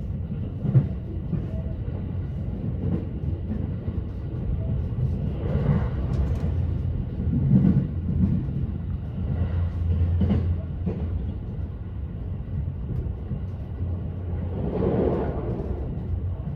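Running noise inside the Haruka limited express electric train: a steady low rumble of wheels on rail, with scattered sharp knocks and a few louder swells of noise.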